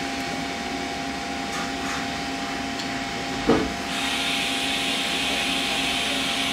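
A steady low hum runs throughout. About halfway through there is a single sharp knock, followed by a steady hiss.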